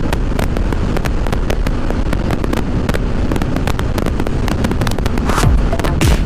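Motorcycle riding at highway speed heard through an external mic, a dense steady rush of wind and engine noise. Constant crackling pops run through it as the wind buffets the microphone.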